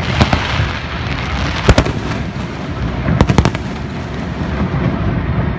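Aerial fireworks bursting: sharp bangs, a pair near the start, another just before two seconds in, and a quick cluster around three seconds in, over a constant rumbling noise.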